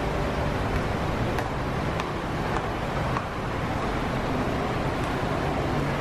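Shallow stream rushing over rocks and a small cascade: a steady, even wash of water.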